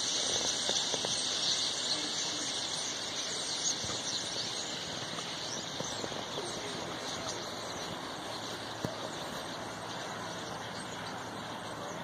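A huge flock of small birds perched along power lines and flying overhead, many calling at once in a dense, continuous high-pitched chatter that eases off slightly later on.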